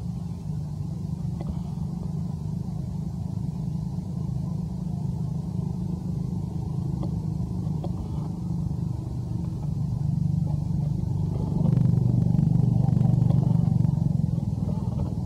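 A vehicle engine running with a low, steady rumble. It gets louder about eleven seconds in and eases off near the end.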